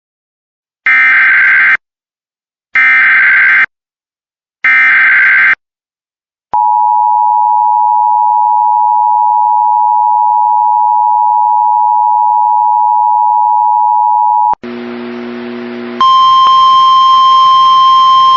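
Emergency Alert System tornado warning tones: the SAME digital header is sent three times as harsh screeching data bursts of about a second each, followed by the two-tone EAS attention signal, a steady dissonant dual tone held for about eight seconds. Near the end it cuts to a short low buzz, then a different steady alert tone with hiss behind it.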